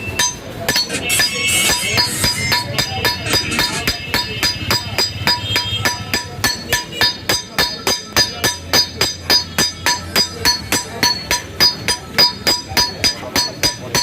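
A blacksmith's hammer striking iron on an anvil in a fast, even rhythm of about four blows a second, each blow leaving a metallic ring.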